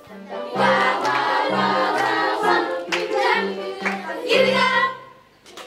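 Children's choir singing with a low, steady accompaniment that moves between two bass notes. The song ends about five seconds in.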